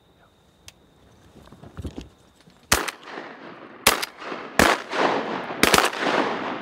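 Volley of shotgun blasts from several hunters: about five shots in three seconds, starting a little under three seconds in, the last two almost together, each trailing off in a rolling echo.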